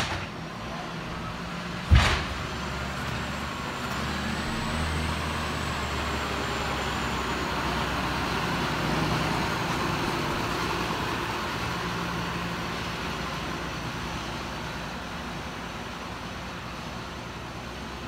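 Bulk feed tanker truck's engine running steadily as the truck backs up slowly, swelling toward the middle and easing off toward the end. A single sharp knock sounds about two seconds in.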